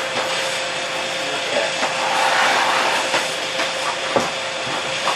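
Steady hiss of compressed air being fed into the trailer's air brake lines, over a constant hum, swelling briefly about two seconds in, with a few light knocks.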